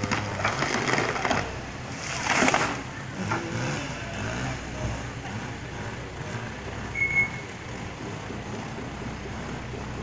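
A large conifer trunk falling, with crackling as it gives way and then a loud crash of branches hitting the ground about two and a half seconds in. Machinery engines run underneath.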